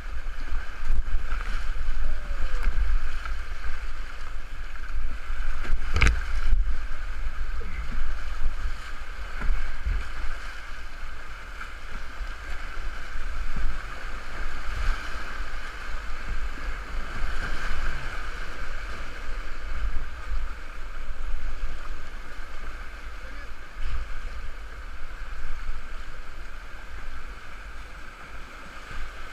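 Rushing whitewater of a river in mild flood, heard from a kayak running the rapids, with water buffeting the microphone. A single sharp knock comes about six seconds in.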